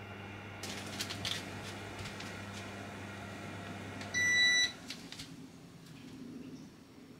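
Electric cooktop humming steadily under a saucepan, then a single short beep about four seconds in as it is switched off, and the hum stops. The saucepan holds milk being heated to just below the boil.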